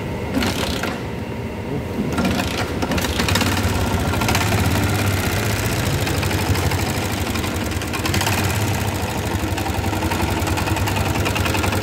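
Yamaha Jupiter MX 135cc single-cylinder four-stroke engine running at a steady idle with a rough, fast rattling clatter from inside the engine. The clatter is the sign of internal faults that a previous, badly done rebuild left behind. The sound gets louder about two seconds in.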